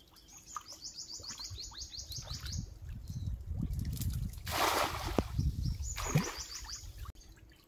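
A cast net hits the pond water with a splash about four and a half seconds in, followed by a second, smaller splash. A bird gives a rapid high chirping trill near the start and again about six seconds in.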